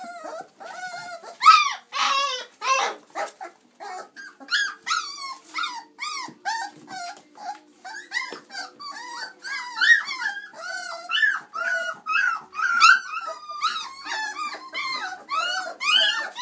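Chocolate Labrador Retriever puppies, 26 days old, whining and yipping. Short, high-pitched cries that rise and fall follow one another a few times a second, some overlapping.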